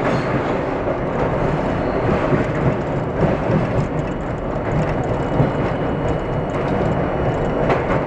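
New York City subway train running through a tunnel, heard from inside the car: loud, steady noise of wheels on the rails, with a sharp click near the end.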